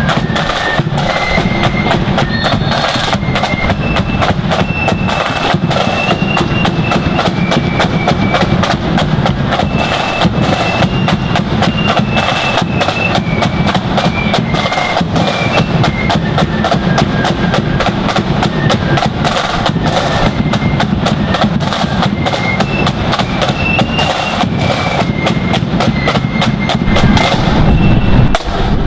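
Marching flute band playing a tune: flutes carry the melody over rapid snare drumming and a bass drum beat.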